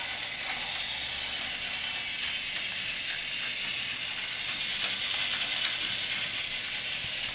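Plarail Taiwan High Speed Rail 700T toy train running on plastic track: its battery-powered motor and plastic gearbox give a steady, high-pitched whirring clatter.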